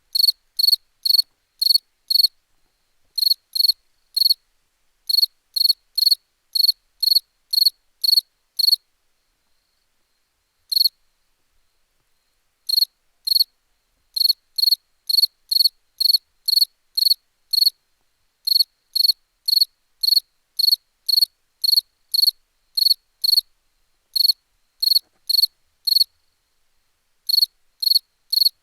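A cricket chirping: short, high-pitched chirps about two a second, in runs broken by pauses, with a longer lull near the middle that holds only one chirp.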